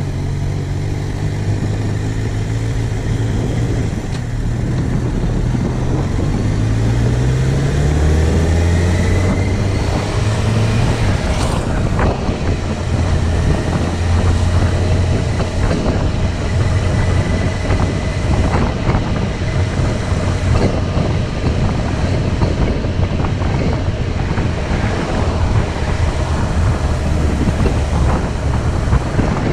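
An engine running steadily, its pitch rising between about six and ten seconds in as it speeds up, then holding steady under a rushing noise.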